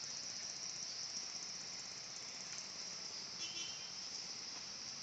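Recorded swiftlet calls, a steady high-pitched chirring, with a short rapid trill about three and a half seconds in.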